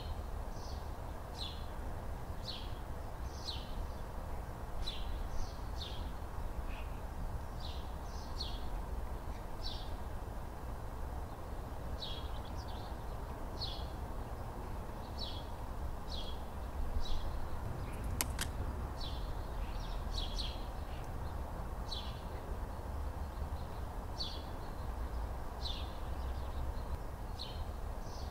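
A small bird chirping over and over, short high falling notes about every half second to a second, over a steady low background rumble. A single sharp click about two-thirds of the way through.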